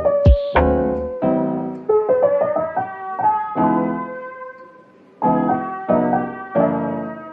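Background piano music: single notes and chords that strike and fade away, with a brief lull about five seconds in before a new chord.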